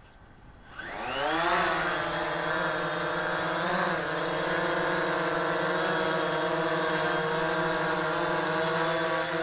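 DJI Phantom 3 quadcopter's four brushless motors spinning up with a quickly rising whine about a second in, then the propellers running at a steady whine, with a brief dip and recovery in pitch around four seconds in.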